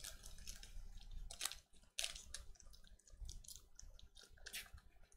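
Trading-card pack wrapper being torn open and crinkled by hand: faint rustling with a few sharp crackles, about a second and a half in, at two seconds and near the end.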